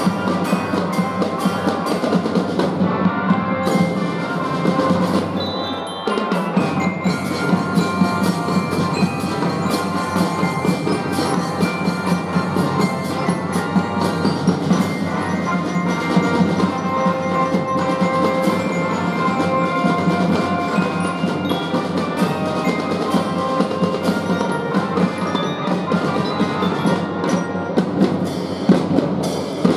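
Children's drum and fife band playing, with bell-lyra glockenspiel and drums to the fore; the music eases briefly about six seconds in, then carries on.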